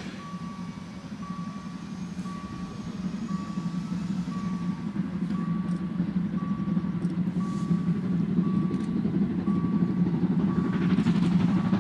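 Steam train approaching: a low rumble grows steadily louder, and the locomotive's exhaust beats and hiss rise near the end. Throughout, an electronic warning beep sounds about once a second.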